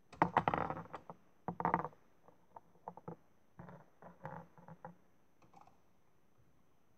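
Hard plastic toy parts clattering as a toy wheelie bin is handled and set against the bin lifter of a Bruder toy garbage truck: two bursts of rattling clicks in the first two seconds, then scattered light clicks and taps that die away a little past halfway.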